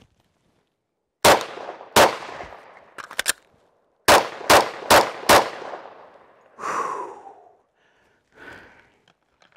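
Six shots from a 10mm Glock 40 pistol: two shots about 0.7 s apart, then a few quick clicks of a slide-lock magazine reload, then four fast shots about 0.4 s apart. Each shot trails off with a ringing echo.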